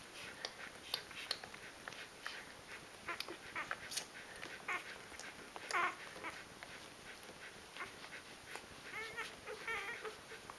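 Newborn Rhodesian Ridgeback puppies nursing: many small wet suckling smacks and clicks, with short high squeaks and grunts. There is a louder squeak about halfway through and a wavering little whine near the end.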